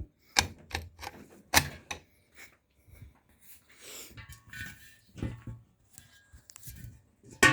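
Irregular clicks, knocks and rattles of milking-machine equipment being handled and set up, with two sharp knocks in the first two seconds.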